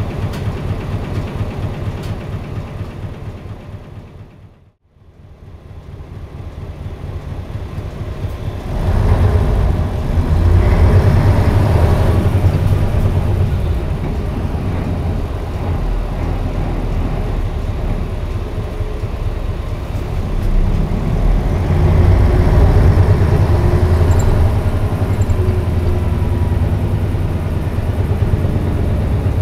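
V8 diesel engine of an Isuzu Cubic KC-LV280N city bus running, heard from on board. The sound drops almost to nothing about five seconds in and builds back. From about nine seconds in the engine pulls harder, with a deep drone, and it rises again near twenty-two seconds.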